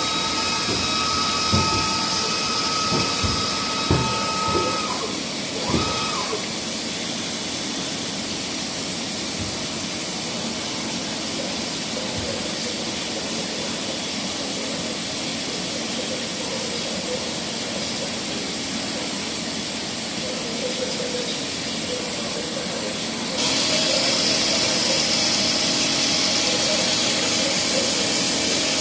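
Fermat WFC 10 horizontal boring mill running: a steady machine hum with a few knocks in the first several seconds. About 23 seconds in the sound steps up, louder and hissier, and stays there.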